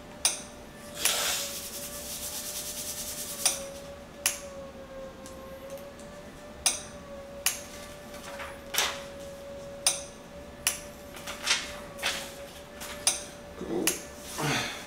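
Hand handling noises: rubbing and rasping, with a string of sharp clicks and taps at irregular intervals over a faint steady hum.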